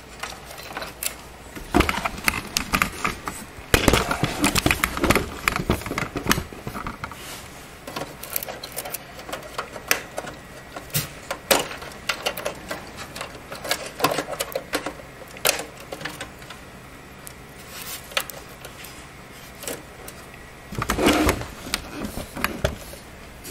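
Irregular plastic and metal clicks, knocks and rattles of SATA drive cables being unplugged and handled inside a desktop computer case. The clatter is busiest early on and again near the end.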